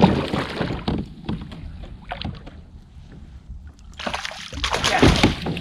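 Water splashing and knocking around a kayak while a hooked smallmouth bass is brought in, with a louder run of irregular splashes and clatter near the end.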